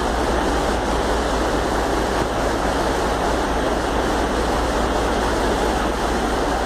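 Steady rush of a fast mountain river, with a Volvo FL10 truck's diesel engine running low underneath as the truck creeps forward.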